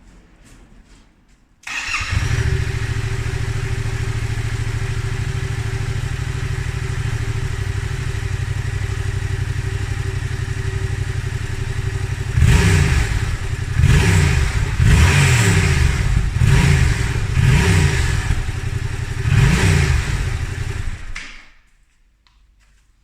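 Yamaha Tracer 700's 689 cc parallel-twin engine through a Mivv Speed Edge aftermarket exhaust. It starts up about two seconds in and idles steadily, then is blipped about six times in quick revs before it dies away near the end.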